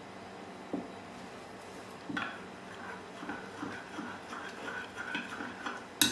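Metal spoon stirring gelatin into cold water in a small glass bowl to soak it: light, irregular clinks and scrapes against the glass from about two seconds in, ending with a sharp tap near the end.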